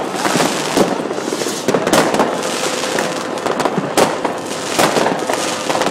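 Fireworks going off: an irregular run of sharp bangs, sometimes several in a second, over a continuous crackle of bursting shells.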